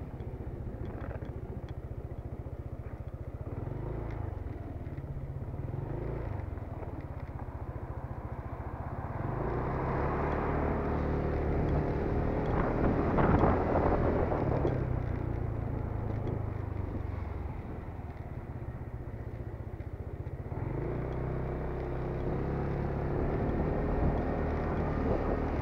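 Yamaha N-Max scooter's single-cylinder engine running under way, with road and wind noise. It grows louder and higher for several seconds in the middle, then eases off.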